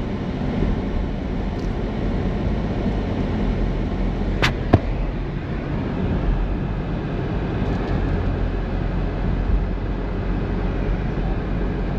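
Volvo S60 driving, heard from inside the cabin: a steady rumble of road and engine noise, with two sharp clicks close together about four and a half seconds in.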